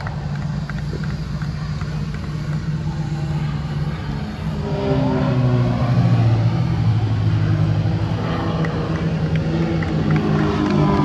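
Propeller engines of two small aerobatic planes droning overhead. The sound grows louder about four and a half seconds in, and its pitch falls as they pass.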